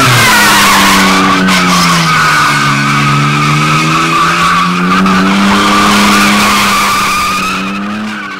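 Nissan Cefiro A31 drifting: its tyres squeal in one long continuous screech over the engine held at high revs. The engine note sags a little and then climbs back up during the slide. The sound eases off slightly near the end.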